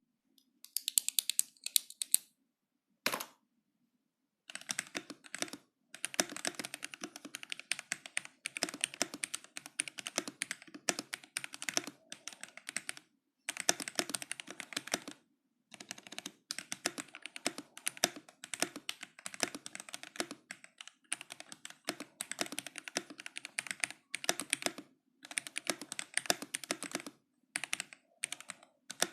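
Modata K66 mechanical keyboard with Gateron Yellow linear switches being typed on: runs of fast keystrokes lasting a second or few, with short pauses between them and a single lone keystroke about three seconds in.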